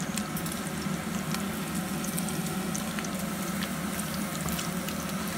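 Thin slices of pork belly frying in hot fat in a pan: a steady sizzle with scattered small crackles and pops, as sliced mushrooms are added to the same fat.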